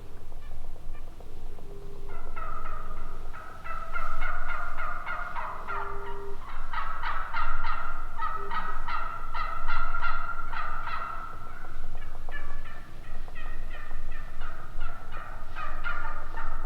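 Several turkeys gobbling. Rattling gobbles overlap one another in a near-continuous run that starts about two seconds in and is loudest through the middle.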